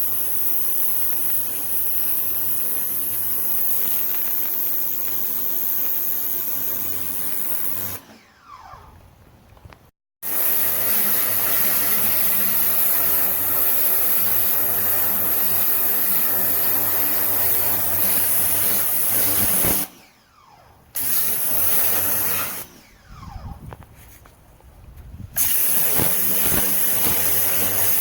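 Ryobi 1600 PSI electric pressure washer running and spraying: a steady motor and pump hum under a hiss of water. Three times the motor winds down and stops, then starts again abruptly.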